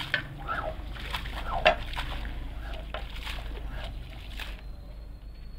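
A squeegee pushing soapy water across a soaked wool rug, the water sloshing and splashing off the rug's edge in irregular surges, over a low steady hum.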